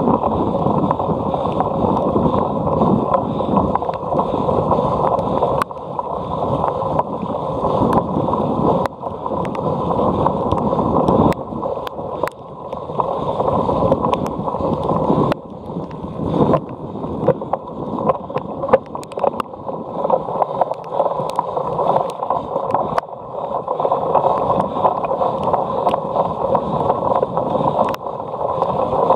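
Steady rushing and rumbling of a cyclocross bike ridden at race pace over rough grass, with wind on the microphone and scattered sharp clicks and rattles from the bike.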